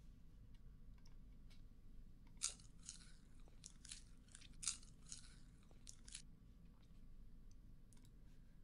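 Faint crunching, a quick run of crisp crunches from about two to six seconds in, two of them louder, over a low steady hum.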